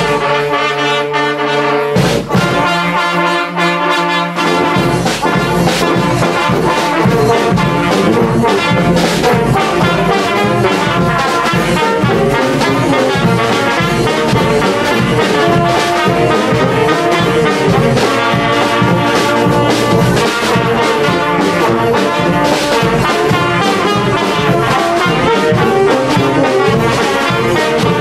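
Dutch dweilorkest (street brass band) playing: trumpets, euphoniums and saxophone with bass drum and snare. A held chord gives way about two seconds in to a lively tune, and the drumbeat joins a couple of seconds later.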